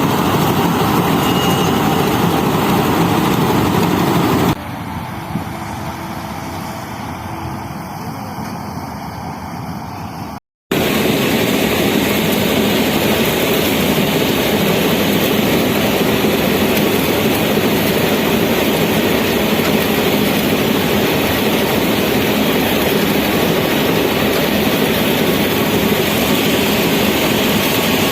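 Engine of a paddy cutting machine running steadily while harvesting rice. It drops noticeably quieter about four seconds in, cuts out briefly near ten seconds, then comes back loud and steady.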